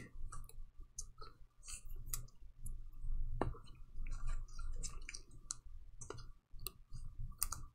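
Trading cards being handled and set down on a tabletop: scattered light clicks and taps of card stock.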